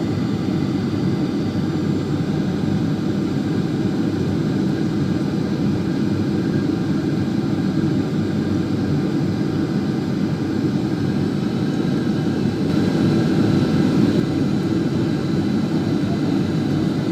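Steady drone of a Boeing 737-800's CFM56 jet engines and rushing air on its landing approach, swelling slightly about three-quarters of the way through.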